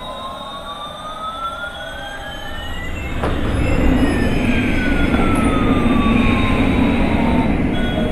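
Battery-powered toy airliner's electronic sound effect: a tone slides up for about three seconds, then slides back down, while a rushing noise grows louder from about three seconds in.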